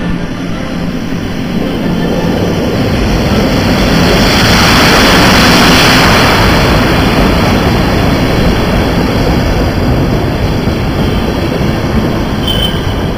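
Electric-hauled passenger train arriving at a station platform: the locomotive and then the carriages roll past with a steady rumble of wheels on rail. The noise peaks as the locomotive goes by, about five seconds in, then eases as the coaches follow, with a brief high squeal near the end.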